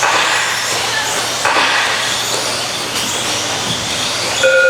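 Several 13.5-turn brushless electric RC stadium trucks racing on the track: a steady mix of motor whine and tyres on the surface. A steady electronic tone starts near the end.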